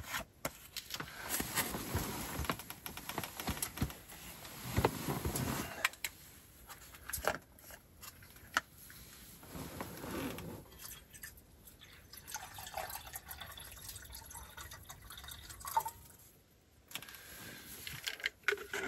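Water sloshing and splashing as a partly frozen water bottle is emptied into a pot, in several uneven pours, with sharp clicks and knocks from chunks of ice.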